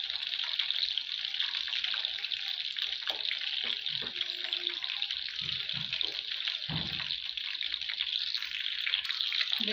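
Besan-battered fish pieces deep-frying in hot oil in a steel pan: a steady sizzling hiss of bubbling oil. About halfway through come a few low knocks as a slotted spatula turns the pieces.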